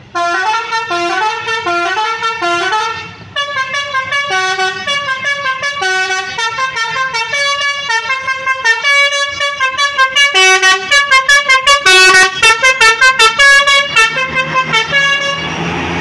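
Tour bus's multi-tone telolet horn playing a tune of stepped notes, with a short break about three seconds in and then a run of quick staccato notes, about four a second. The horn stops just before the end, and the bus engine comes up as the bus passes close by.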